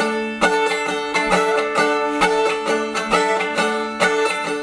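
Instrumental break of a song: a plucked string instrument picking a quick, even run of notes.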